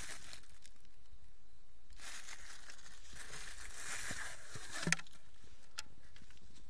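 Rustling and handling noise from a camera being moved about in the dark, with a few light clicks, the sharpest a little before five seconds in.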